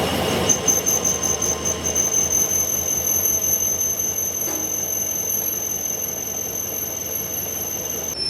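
Lathe cutting tool squealing as it turns a metal conveyor drum roller, a steady high-pitched whine that sets in about half a second in, wavers briefly, then holds, and drops a little in pitch near the end, over the low hum of the lathe.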